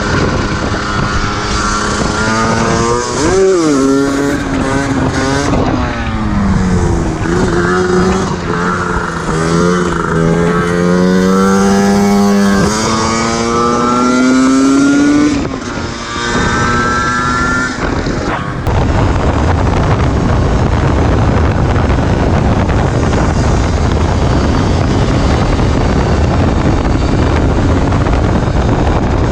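Yamaha DT 125 single-cylinder two-stroke engine being ridden, its revs rising and falling repeatedly as the bike accelerates and shifts. About 18 seconds in the engine tone cuts off suddenly and gives way to a steady rushing noise.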